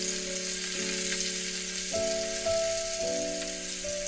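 Rohu fish pieces deep-frying in hot oil, a steady sizzle, with faint scrapes of a wooden spatula turning them. Soft background music with held notes that change about once a second plays under it.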